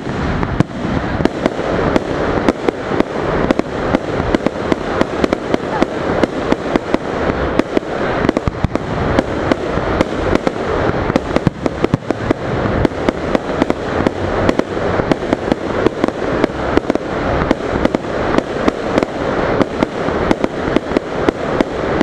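Aerial firework shells bursting in a rapid, continuous barrage of sharp bangs, several a second, with no pause.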